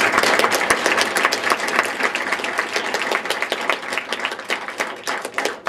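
Audience applauding: dense, steady clapping from many hands that eases off slightly near the end.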